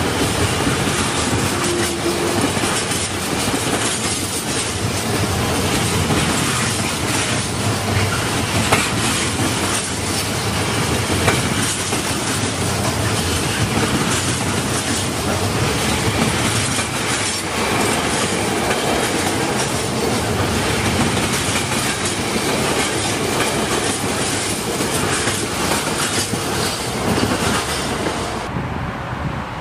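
A freight train of empty flat wagons rolling past close by, its wheels clattering steadily over the rail joints. The clatter stops sharply near the end as the last wagon passes.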